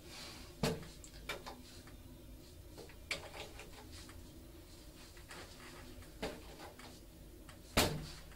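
Lift call buttons being pressed: a handful of sharp clicks spread over several seconds, the loudest near the end, over a low steady hum.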